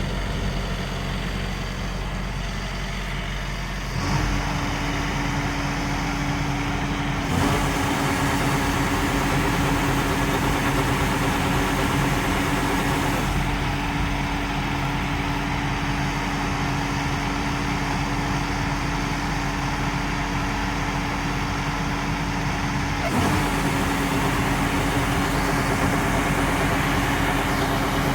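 LOVOL RG130 EVO rice combine harvester running: a steady mechanical noise of engine and machinery, with a steady hum that joins about four seconds in. The sound shifts abruptly a few times.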